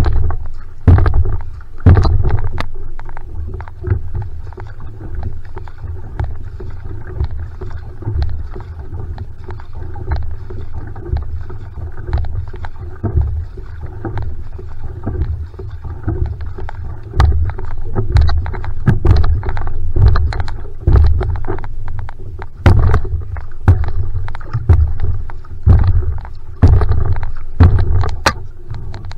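One-person outrigger canoe (va'a) paddled at a steady rate: the single-blade paddle catches and pulls through the water about once a second, each stroke a low surge with splashes, over water rushing along the hull.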